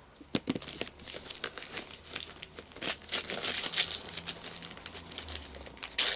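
Paper gift wrapping being torn and crumpled by hand as a present is unwrapped: irregular crinkling and rustling, densest around the middle, with a louder rip near the end.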